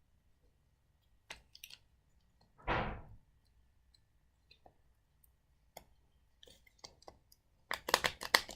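Light clicks and taps of a screwdriver and the small metal parts of an old model train being handled, with a short hiss about three seconds in and a quick run of clicks near the end.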